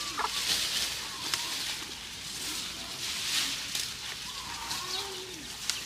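Cows tearing and chewing cut bamboo leaves: a rustling, crunching crackle that comes in bursts about once a second, with a couple of sharp snaps.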